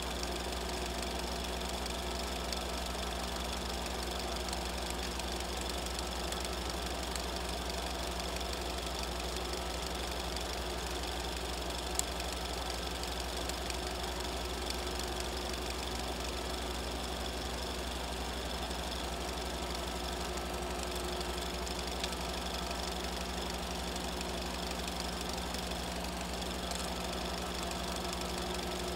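Super 8 film projector running: a steady hum and whir from its motor and film transport, with one sharp click about twelve seconds in.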